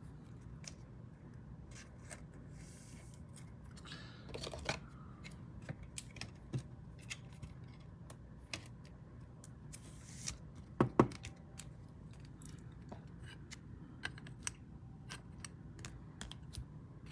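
Trading cards being handled at a table: scattered small clicks, taps and scrapes of card stock and plastic.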